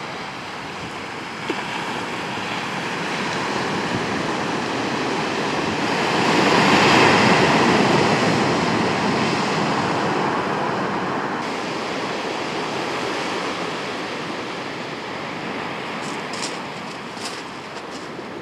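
Sea surf breaking on a shingle beach: a steady wash of waves that swells to its loudest about seven seconds in, then slowly fades back.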